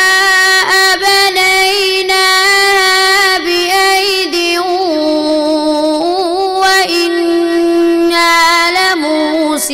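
A young boy's solo voice reciting the Quran in melodic tilawat style, drawing the words out in long held notes with small ornamental turns in pitch.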